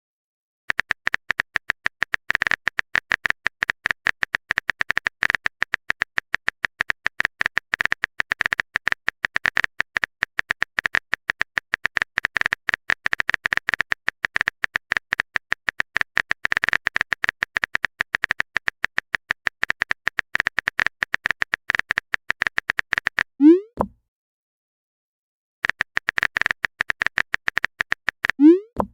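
A rapid run of keyboard typing clicks, a sound effect for a message being typed in a chat, goes on for a long stretch and ends in a short rising bloop as a message is sent. After a brief pause the typing clicks come back for a couple of seconds and end in another bloop.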